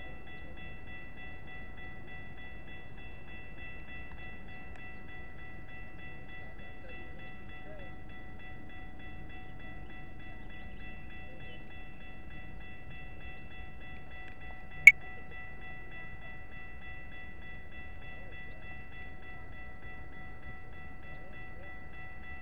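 Railroad crossing warning bell ringing steadily with a quick, even repeat while the crossing signals are active. A single sharp click stands out about fifteen seconds in.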